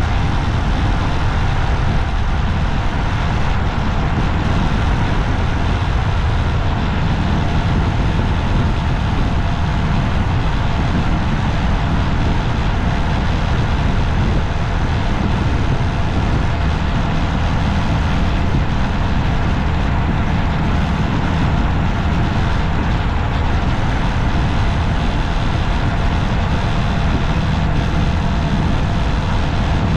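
Steady low rumble of road-vehicle driving noise, engine and tyres, running evenly with no distinct events.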